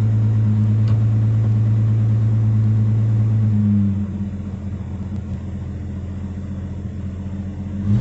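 A 1961 Rover P4 100's 2.6-litre straight-six running on a raised idle with the cold-start control pulled out, just after starting. About four seconds in, the engine settles to a lower, quieter idle as the cold-start control is pushed in; the engine is already warm and needs little choke.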